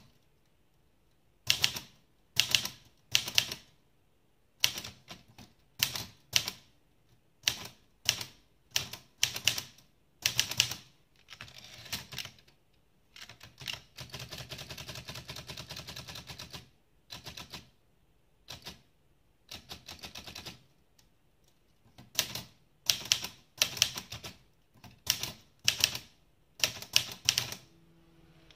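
Olivetti Lettera 32 manual portable typewriter being typed on: sharp clacks of the typebars striking the platen come in quick groups with short pauses between. In the middle there is a denser run of rattling strokes lasting a couple of seconds.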